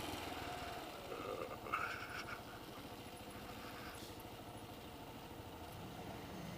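Kawasaki KLR 650's single-cylinder engine running as the bike is ridden, with steady low firing pulses. A short higher-pitched sound comes about two seconds in.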